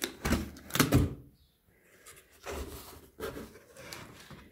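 Cardboard box being opened by hand, its flaps and lid scraping and rustling: two loud bursts in the first second, then a few softer rubs.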